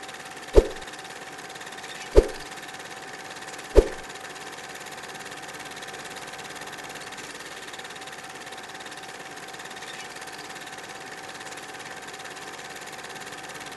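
Steady background hiss with a faint steady hum tone, broken by three sharp thuds evenly spaced about a second and a half apart in the first four seconds.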